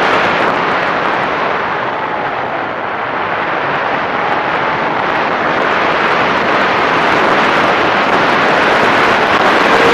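Wind rushing over an RC airplane's onboard camera microphone as the plane descends, with the motor's whine dropped out except for faint brief snatches. The rush dips slightly about three seconds in, then builds again.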